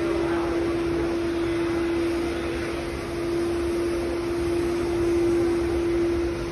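Steady machine hum: one unbroken mid-pitched tone over a low, even rumble and hiss.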